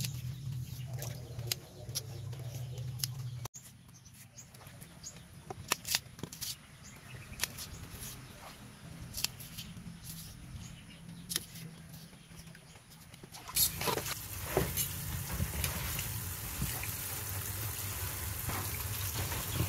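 Scattered light clicks and taps, then about two-thirds of the way in a kitchen tap starts running water into a plastic bowl as cut taro stalks are rinsed under it.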